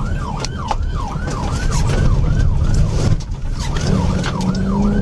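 Police car siren on a rapid yelp, about three rising-and-falling sweeps a second, over the steady rumble of the pursuing cruiser's engine and road noise during a high-speed chase.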